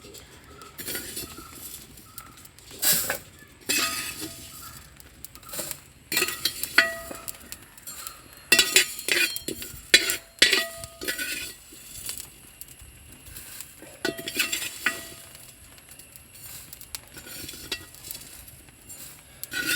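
A spoon scraping and knocking in an uruli (a wide round cooking pan) as dry-roasted rice and spices are scooped out. The knocks come irregularly, and some leave a short ringing from the pan.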